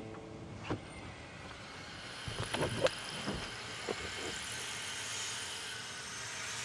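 Quiet car cabin: a low, steady rumble, broken by a few short, sharp clicks and knocks, one under a second in and a small cluster around two and a half to three seconds in.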